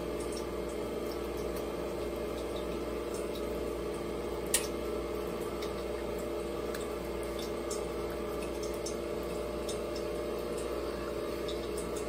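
Coffee machine brewing: a steady pump hum with liquid dripping and faint ticks, and one sharper click about four and a half seconds in.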